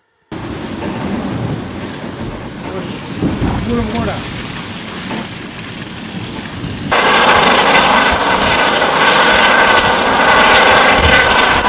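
Wind and rushing water noise over an ocean racing yacht driving hard through heavy seas. About seven seconds in, a louder, harsher rush with a steady high whine takes over: a helicopter flying close by.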